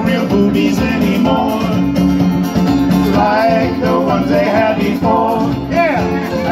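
Live band playing a country-flavoured island song on acoustic guitar, keyboard and congas, with singing.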